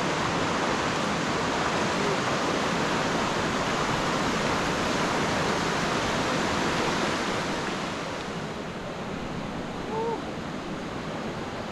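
Steady rush of river water over rapids, a dense even hiss that eases slightly near the end.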